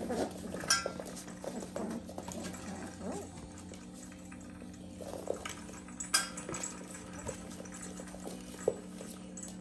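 Mini goldendoodle and labradoodle puppies scampering around a hanging sway board on a hard floor: irregular paw patter and scrabbling, with a few sharper knocks, over a steady low hum.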